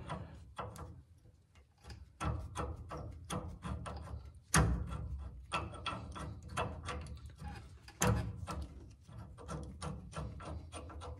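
Steel caliper bolt being fitted through a rear disc brake caliper and bracket by hand: a string of small metallic clicks and rattles as the parts are handled, with two sharper knocks about four and a half and eight seconds in.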